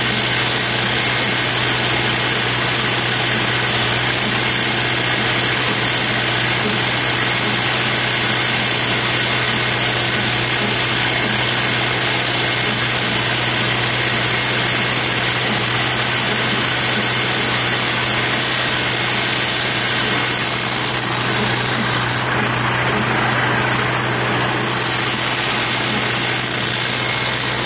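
International Harvester 300 Utility tractor engine running steadily while pulling a mower.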